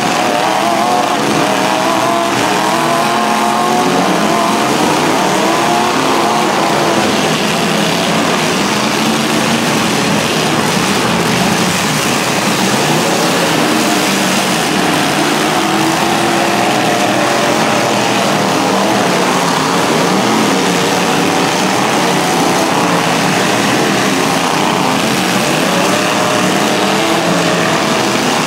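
Several demolition-derby truck engines running hard at once, revving up and down unevenly as the trucks drive and manoeuvre.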